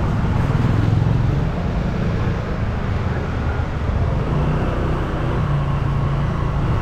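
Road traffic: vehicle engines running close by with a steady low hum over road noise.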